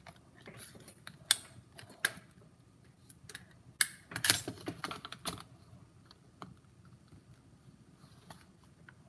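Plastic computer mouse being pried at with a screwdriver: irregular sharp clicks and short scrapes of metal on plastic, busiest in the first half, thinning to light ticks later on.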